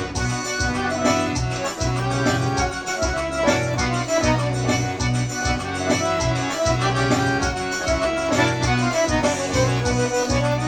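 Accordion (sanfona) music: a melody line over a steady, repeating bass rhythm, playing continuously.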